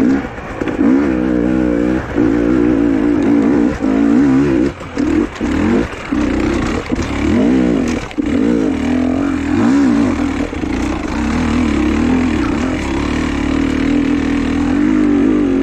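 Trail motorcycle engine being ridden, its pitch rising and falling over and over as the throttle is opened and closed, with several brief dips in the first half.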